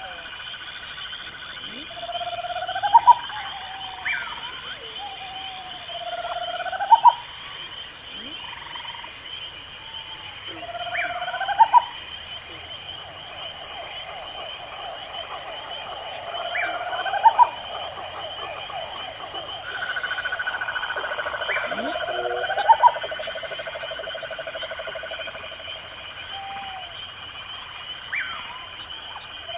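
Night chorus of crickets: a steady, high-pitched trill throughout. Over it, a short upward-sliding call repeats every four to five seconds, with scattered high ticks.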